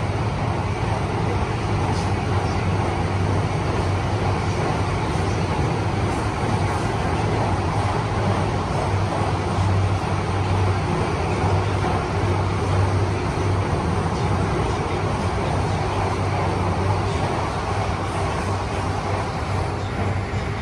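Steady running noise inside a moving metro train car: an even rushing noise over a continuous low hum.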